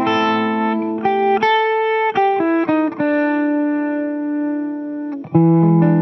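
Electric guitar played through a DIY Phaser 45 clone pedal: a few quick picked notes, then a note held for about two seconds before a new note is struck near the end.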